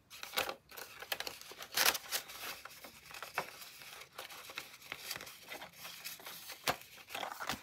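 Paper banknotes rustling and a clear plastic binder envelope crinkling as a stack of bills is slid into it and straightened, with a few sharper crinkles standing out.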